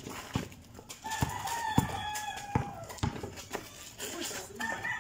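A basketball being dribbled on an outdoor concrete court, with sharp bounces roughly every half second. A rooster crows in the background, one long call starting about a second in and another beginning near the end.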